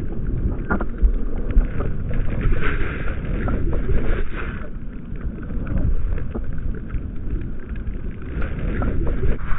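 Rushing, rumbling noise of riding deep powder on a snowboard: wind buffeting a pole-mounted action camera's microphone and the board plowing through snow, with many irregular knocks and pops throughout.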